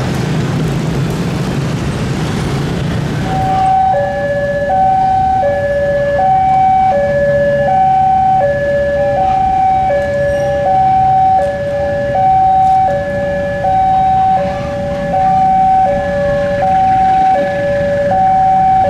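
Railway level-crossing warning alarm: an electronic two-tone signal switching back and forth between a higher and a lower tone, each held for well under a second, starting about three and a half seconds in. Before it there is a steady engine rumble that stops abruptly.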